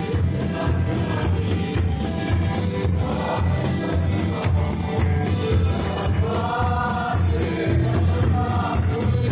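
Amplified gospel worship music with a steady bass beat, a congregation singing along; the singing voices stand out most from about six seconds in.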